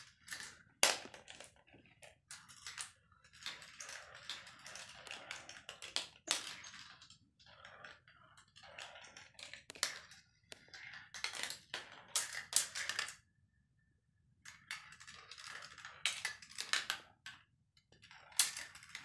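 Marbles running through a Gravitrax plastic marble run: a steady rattling roll along the tracks and rails, broken by sharp clicks and clacks as balls drop and strike the pieces, with a short lull about two thirds through.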